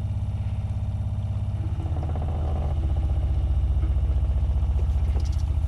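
Electric water pump running with a steady, rapidly pulsing hum as it pumps water into the van's freshly fitted pipework and builds pressure, getting louder about two seconds in.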